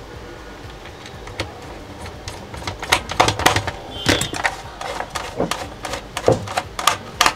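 Irregular clicks and knocks of plastic and metal parts being handled, as the tuning-dial mechanism of an opened radio-cassette recorder is adjusted by hand. The clicks start about two and a half seconds in and come in uneven clusters.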